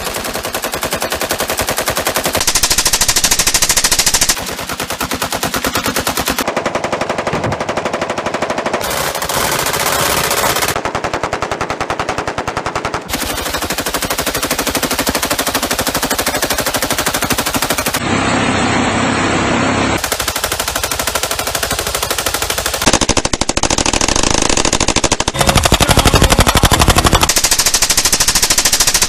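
Sustained fully automatic gunfire from a succession of different machine guns and rifles: rapid shots with almost no gaps, changing in pitch and loudness at each change of gun every few seconds.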